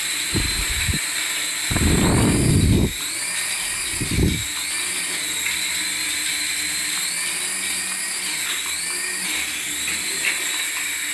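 The small electric motor of a battery-powered toy whirs steadily at a high pitch, its pitch rising and falling about once a second. A few low knocks come in the first four seconds.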